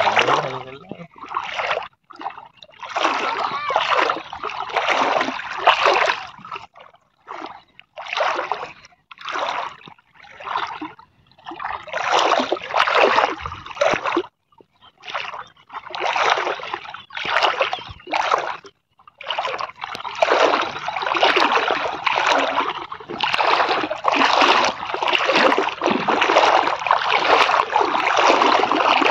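Water splashing and sloshing in irregular bursts as a man wades in knee-deep water, hauling in a fishing net.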